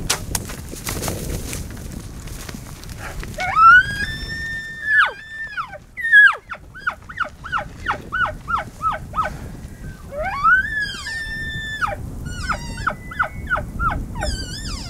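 Rutting bull elk bugling twice at close range. Each bugle is a rising whistle held on a high note, then dropping, followed by a fast string of about a dozen short chuckles. Wind noise runs steadily underneath.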